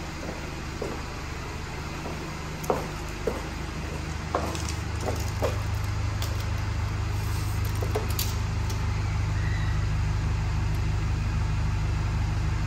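Mercedes E-Class cabriolet's engine idling steadily, growing a little louder about five seconds in, with a few light knocks and taps on top.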